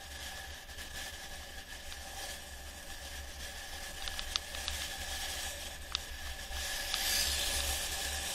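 Wind rushing over a bike-mounted camera and tyres rolling on a concrete road as a mountain bike coasts downhill, with a faint steady whine under it. A few sharp clicks of rattles over bumps come in the middle, and the rushing gets louder near the end as the bike picks up speed.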